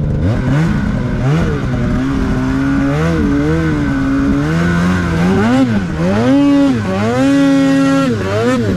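Polaris 850 two-stroke snowmobile engine through a Sled Shed Cooker Thing silencer, revving up and down in repeated throttle blips and pulls. Near the end it is held high at about 8,200 rpm, then drops back to a lower steady note.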